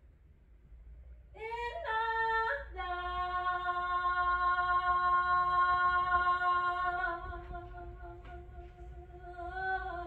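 A woman singing a cappella. A rising note jumps briefly higher, then settles into one long held note of about four seconds that fades away, and a new note rises near the end.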